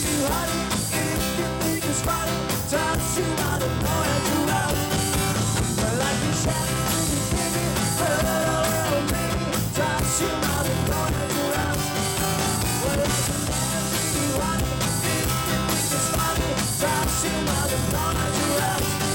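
Live rock band playing: acoustic guitar, electric bass and keyboard, with a man singing lead.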